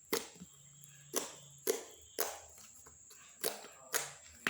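Homemade slime being squeezed and pressed by hand, giving a series of sharp pops and clicks spaced about half a second to a second apart.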